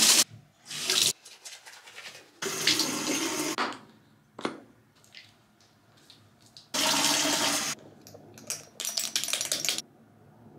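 Bathroom sink tap running in several short bursts of a second or so each, with a few small clicks in the quiet gaps between.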